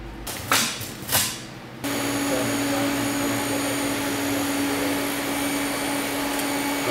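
TIG welding arc on a stainless-steel exhaust pipe: a steady hiss with a steady hum under it, cutting in suddenly about two seconds in.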